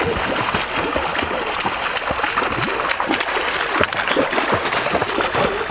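Water splashing as people run and wade through a shallow, stony stream, over the steady rush of the flowing water.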